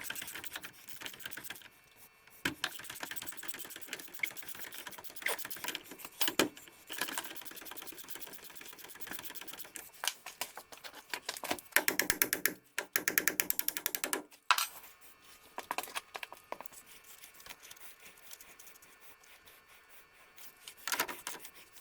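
Hand ratchet wrench clicking in quick bursts as suspension bolts are run in and tightened, with a few single sharper metal knocks in between. The loudest, densest run of clicks comes about twelve seconds in.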